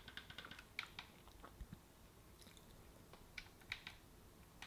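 Near silence broken by faint, quick clicks, a cluster in the first second and a half and a few more about three to four seconds in.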